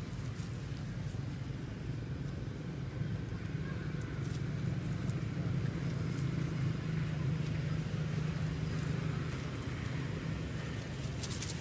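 Steady low rumble of a motor vehicle engine running nearby, swelling slightly in the middle and easing off, with a few faint clicks near the end.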